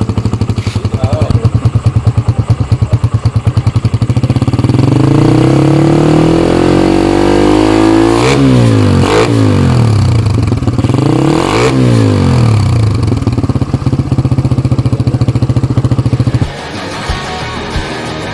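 Kawasaki Rouser 135 (Pulsar 135) single-cylinder four-stroke engine breathing through an aftermarket NOB1 NeoSS muffler. It idles, then the revs climb gradually from about four seconds in, with two quick rev blips that rise and fall, around eight and eleven and a half seconds in, before settling back to idle. The engine sound cuts off sharply about two seconds before the end.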